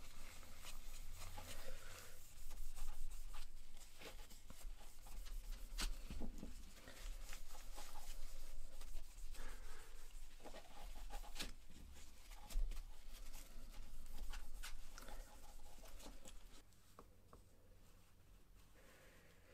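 Cloth rubbing over a steel pricking iron as it is wiped and polished by hand: irregular scratchy strokes with occasional sharp clicks from handling the tool. The rubbing stops about three-quarters of the way through, leaving only faint room sound.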